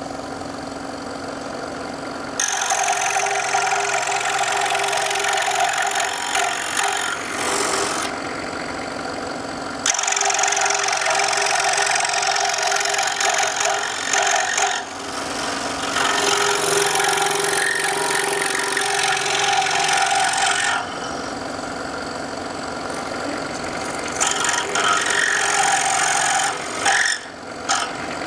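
Scroll saw running, its reciprocating blade cutting through a thin wooden board. The cutting noise comes in four stretches of a few seconds each, the first about two seconds in, with the saw's steady motor hum between them.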